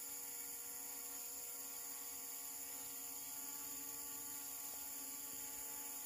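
Faint, steady hum of a quadcopter drone hovering high overhead: several even tones held without change, with a steady high hiss over it.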